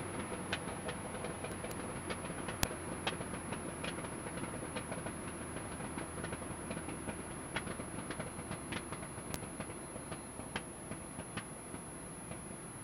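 Muffled engine and wind noise in a Pitts biplane's cockpit: a steady rumble with irregular light clicks and rattles, over a faint steady high whine.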